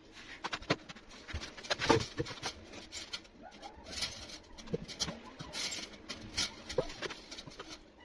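Wire bird cage rattling and clinking in irregular short clicks as it is lifted and hung on wall screws, with bird calls mixed in.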